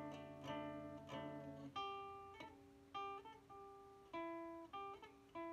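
Acoustic guitar with a capo, played with the fingers: a few repeated chords over a low bass, then, about two seconds in, a melody of single plucked notes, one after another.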